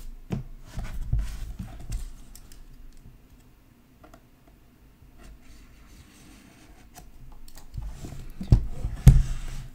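Irregular clicks and light scratching of a blade cutting through the seal sticker on a sealed card box case, with handling taps; a few louder knocks near the end.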